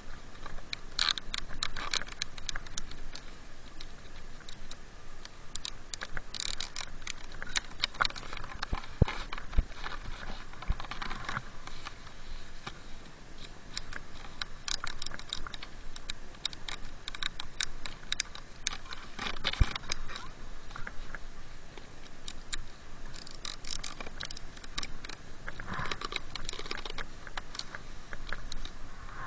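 Snowboard binding strap ratchets clicking in short runs as gloved hands tighten the straps, with a few louder knocks.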